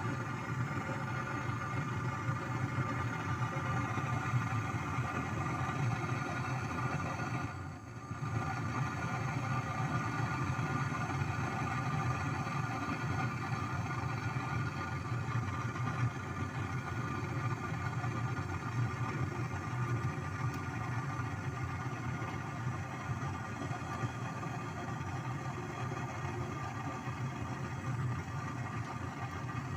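A small motor running steadily with a low hum and a whine of steady tones, dipping briefly about eight seconds in.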